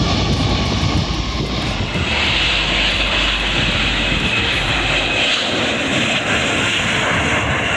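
Jet airliner engines running: a steady roar. It gets a stronger high-pitched hiss from about two seconds in, and its deep rumble fades out about five seconds in.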